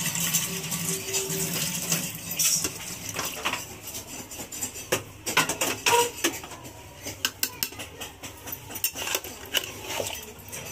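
Kitchen dishes and metal utensils clinking and clattering in a run of sharp, uneven clicks and knocks. A steady rushing noise underneath stops about two seconds in.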